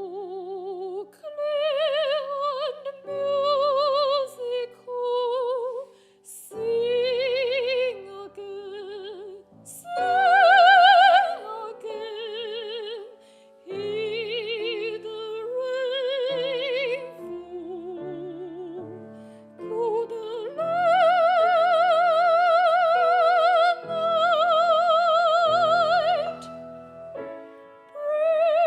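Classical art song: a high female voice sings sustained notes with wide operatic vibrato over piano accompaniment, the longest held notes coming in the second half.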